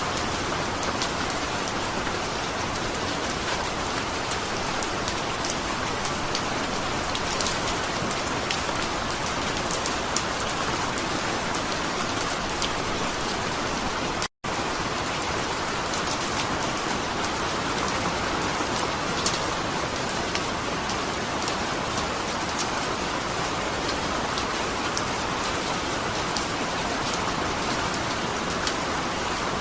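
Steady rain falling, with individual raindrops ticking sharply here and there. The sound cuts out for an instant about halfway through.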